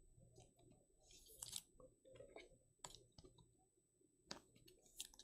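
Near silence broken by a few faint, scattered clicks and rustles, like cards and plastic sleeves being handled on a table.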